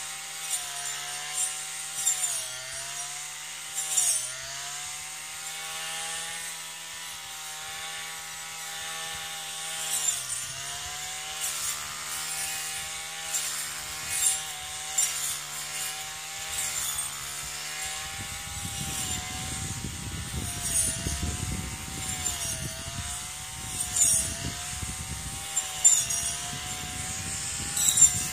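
Brush cutter engine running steadily, its pitch sagging and recovering every few seconds as the blade bites into the grass. Brief sharp bursts mark where the blade strikes the stems. A low rumble joins in about two-thirds of the way through.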